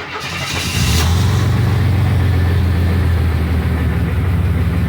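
Carbureted Pontiac Firebird engine starting with fresh oil just put in: it comes to life in the first second, then settles into a steady idle.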